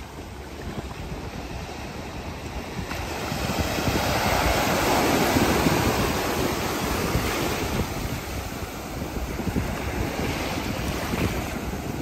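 Ocean surf washing onto the beach, swelling about four seconds in and then easing, with wind buffeting the microphone.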